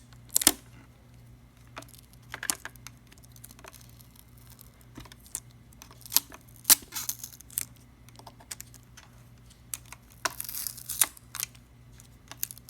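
Flat-blade screwdriver tip clicking and scraping against the coffee grinder's body while prying off a sticker, in scattered sharp clicks with a brief rasping noise about ten seconds in.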